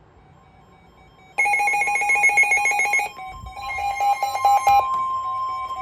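NOAA Weather Radio alert going off: about a second and a half in, a loud burst of rapid electronic data warble, then a steady high alert tone with pulsing beeps over it. It marks the start of a special marine warning broadcast.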